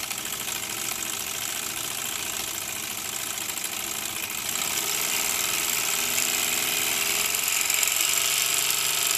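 1926 Bowman 234 live-steam locomotive's oscillating cylinders chugging rapidly, with steady steam hiss. About halfway through the throttle valve is opened further and the engine gets louder.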